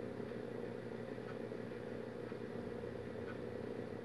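Quiet room tone: a steady faint hiss with a low hum, and no clear sound from the crochet work.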